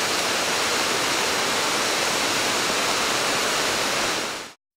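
Waterfall pouring down a rock face: a steady, loud rush of falling water that fades out quickly near the end.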